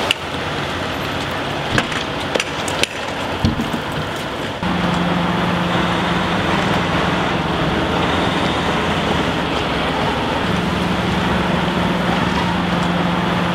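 Pierce fire engine's diesel engine running with a steady low hum, heard from the rear hose bed. For the first four and a half seconds there is only an outdoor hiss with a few knocks.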